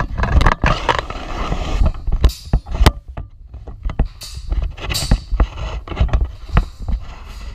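Training longswords striking each other in sparring: a string of sharp, irregular clacks and clashes, the loudest a few seconds in, over scuffing footsteps and thumps on rubber mats.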